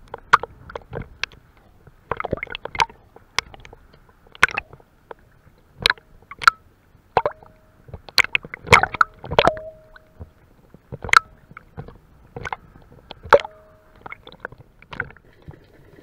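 Choppy sea water sloshing and slapping around a camera at the waterline. Irregular sharp splashes follow one another a second or less apart, with short gurgles between them.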